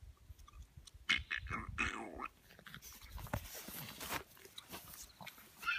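Boston terrier puppy playing with a rubber ball on grass, giving a few short vocal sounds about a second in, then a rustling hiss. Dull bumps sound on the microphone throughout.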